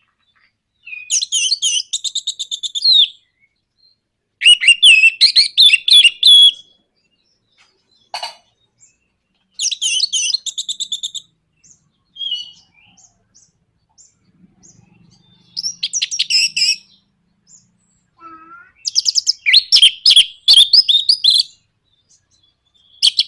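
Orange-headed thrush (anis merah) singing its fast chattering 'nraktak' song, a lure call used to get kept birds singing. About five bursts of rapid repeated high notes, each lasting one to two seconds, with pauses and a few single notes between them.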